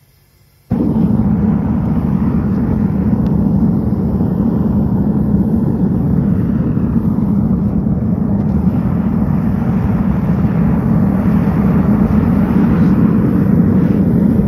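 Gas burner of a metal-melting furnace being fired, coming on suddenly less than a second in and then running with a loud, steady rushing sound, with no change in pitch.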